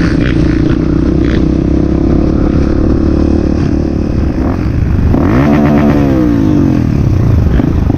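Dirt bike engine running steadily, then revving about five seconds in, its pitch climbing quickly and then falling back.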